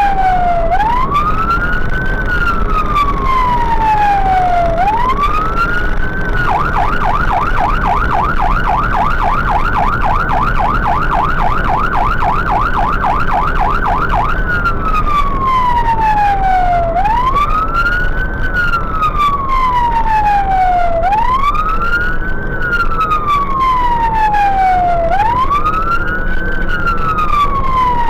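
Fire engine's siren sounding a slow wail, a quick rise and a long fall about every four seconds. About a quarter of the way in it switches for some eight seconds to a fast yelp of about four sweeps a second, then goes back to the wail. The truck's engine and road noise run steadily underneath.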